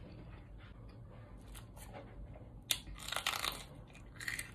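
Close-miked eating sounds: wet chewing with small clicks, then loud crisp crunches about three seconds in and again near the end as a raw jalapeño pepper is bitten.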